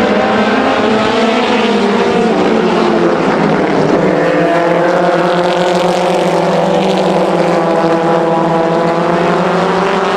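Engines of several super mini late model race cars running on track together, their pitch bending up and down as they drive past.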